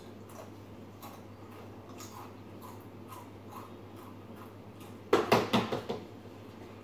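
A dog barking several times in quick succession about five seconds in, over a low steady room hum.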